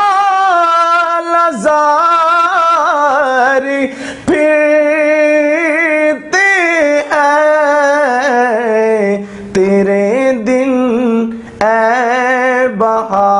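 A man singing an Urdu naat solo, in long drawn-out notes with a wavering vibrato that glide from pitch to pitch, pausing only briefly for breath.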